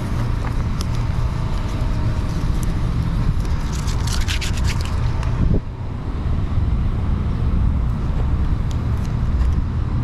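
Adhesive tape backing being peeled off a stick-on spoiler, with a run of short scratchy rips about four to five seconds in, over a steady low rumble.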